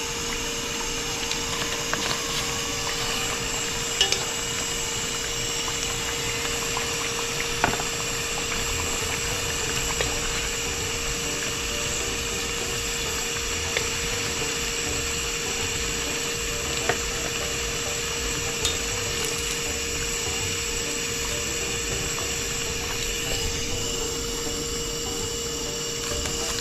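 Fish frying in hot oil, a steady sizzle, with a few sharp clinks of a utensil against the pan and a steady hum underneath.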